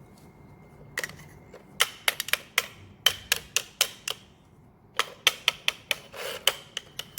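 Toy hammer from a kids' pretend-play tool set tapping repeatedly on a toy car: one tap about a second in, then two runs of quick, sharp taps at about four a second.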